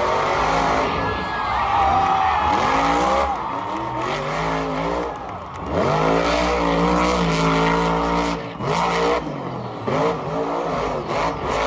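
Monster truck's supercharged V8 engine revving hard in repeated surges, the pitch rising and falling; near the middle it climbs quickly to a held high rev for a couple of seconds, then drops away.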